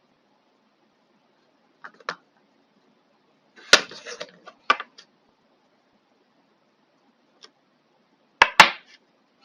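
Sharp clicks and knocks of small hard parts being handled on a bench: a soft pair, then a loud click with a brief rustle after it, another click, and a loud double click near the end.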